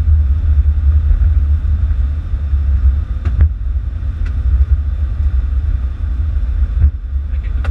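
Steady heavy rumble in the cockpit of a Boeing 747 rolling down the runway on its landing rollout, with a few faint clicks.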